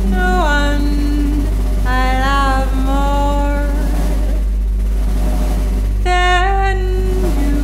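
A woman singing long held notes into a microphone in three phrases, sliding between pitches with vibrato, over a steady low electronic drone; there is a gap of drone alone in the middle.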